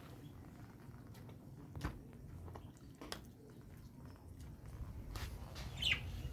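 Shih tzu dog chewing and biting, with a few sharp clicks and a brief high squeak near the end.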